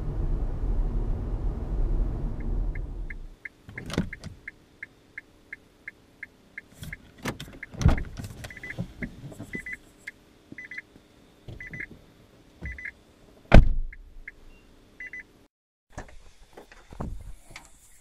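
Road and tyre noise inside a Nissan Leaf's cabin, which stops abruptly about three seconds in. Then the car's electronic warning chime beeps repeatedly, about three a second and later in pairs, among the clunks and thuds of the car door being opened and handled, the loudest thud about two-thirds through.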